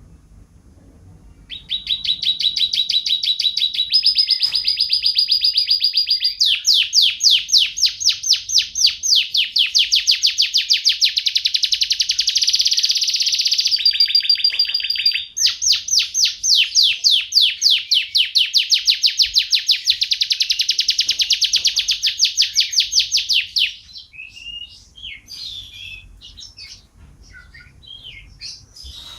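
Domestic canary singing a long song of fast rolling trills that shifts pitch every few seconds, then breaking off into softer, scattered chirps for the last few seconds.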